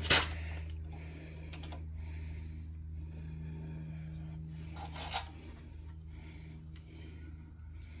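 Small metal parts and tools being handled: a sharp click right at the start, another about five seconds in and a faint one shortly after, with light rubbing and scraping between, over a steady low hum.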